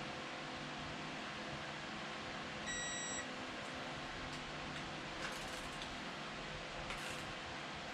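Single electronic beep of about half a second from a digital torque meter, about three seconds in, followed by a few faint clicks of tools on the bolts.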